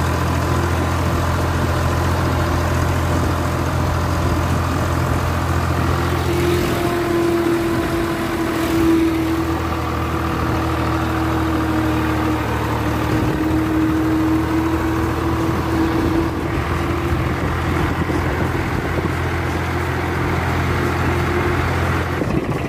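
Swaraj 735 tractor's three-cylinder diesel engine running steadily, heard from the driver's seat, with a steady whine joining for about ten seconds in the middle. The engine sound cuts off just before the end.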